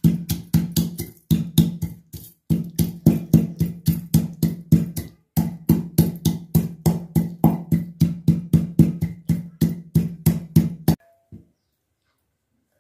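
Steel tumbler pounding dried red chillies and salt in a stainless steel bowl, about three to four ringing strikes a second with a few short breaks, stopping about eleven seconds in.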